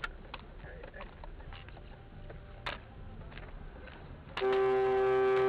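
Low road and cabin rumble with a few clicks over a rough dirt surface, then a car horn sounding about four seconds in: one loud, steady tone held without a break.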